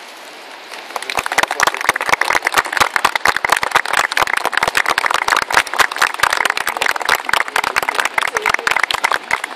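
A small group of people applauding by hand, the clapping starting about a second in and going on densely.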